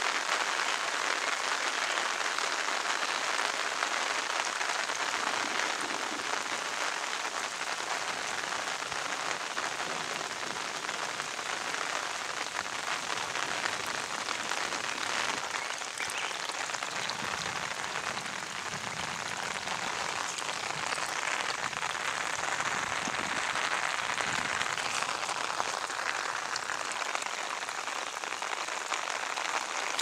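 Rainwater runoff rushing along a shallow muddy channel beside grass, a steady splashing hiss of running water.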